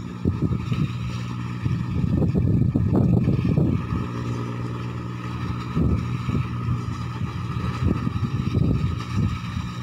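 Rice combine harvester's engine running steadily as a low droning hum, with louder, rougher swells a couple of seconds in and again near the end.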